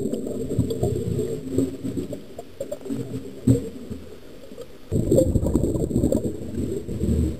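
Muffled underwater noise heard through a camera's waterproof housing: a dense, low, crackling rumble that eases off in the middle and comes back louder about five seconds in, over a faint steady high whine.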